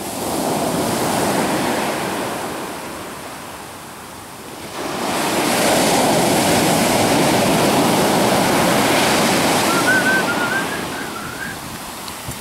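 Ocean waves breaking and washing in, in two surges: a smaller one at the start and a louder, longer one from about five seconds in that fades away near the end.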